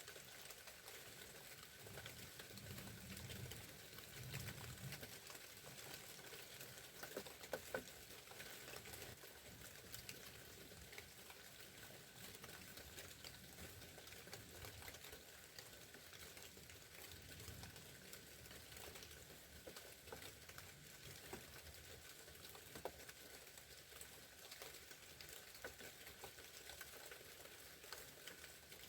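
Light sleet and rain pattering faintly and steadily as many tiny ticks, with a few louder ticks about seven to eight seconds in. Low thumps in the first few seconds.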